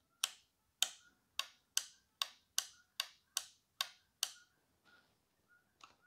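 Sharp metallic clicks from the exposed contact of an opened micro switch worked by a thin probe: about ten clicks, a little over two a second, stopping after about four seconds.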